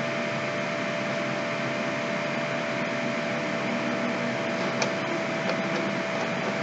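Steady background hiss of the recording setup with a constant mid-pitched hum tone, and a few faint clicks about five seconds in.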